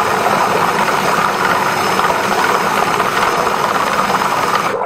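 Flexible-shaft drain cleaning machine running steadily, its motor spinning the cable inside a clogged urinal drain pipe, then cutting off abruptly at the end.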